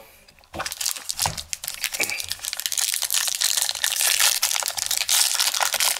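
Crinkling of a plastic trading-card pack wrapper being handled and torn open: a dense, continuous run of fine crackles that starts about half a second in.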